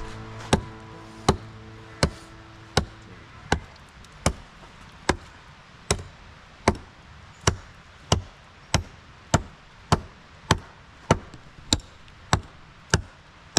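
A steady run of about nineteen sharp chopping strikes, each a clean crack, at first about one every three-quarters of a second and quickening slightly toward the end.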